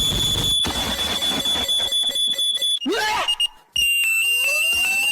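A steady high electronic alarm-like tone that breaks off about three seconds in. After a brief gap, a slightly lower steady tone starts, with short rising sweeps beneath it.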